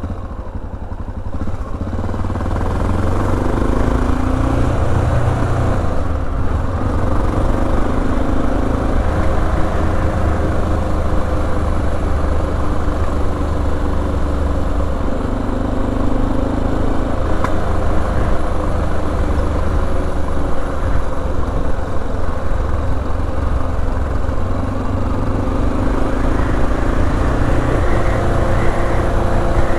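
Honda XR650L's single-cylinder engine under way on the road, its pitch rising and falling several times as the bike accelerates and eases off. It gets louder about a second in.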